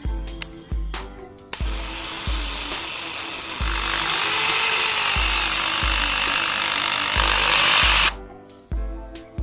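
Black & Decker KR554RE 550-watt hammer drill running, starting about one and a half seconds in, getting louder midway and stopping suddenly about a second before the end, over background music with a steady beat.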